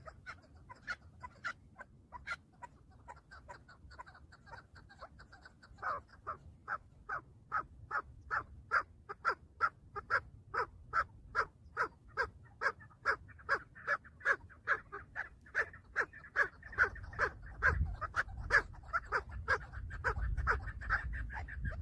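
Chukar partridge calling: a few scattered notes, then from about six seconds in a steady, speeding series of short 'chuk' notes, about three a second, growing louder. A low rumble joins near the end.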